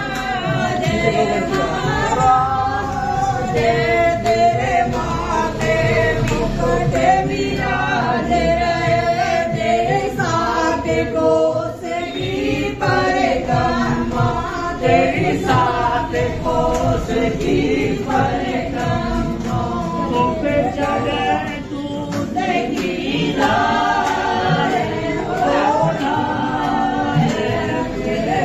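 A group of voices singing a Hindu devotional song together, in continuous phrases.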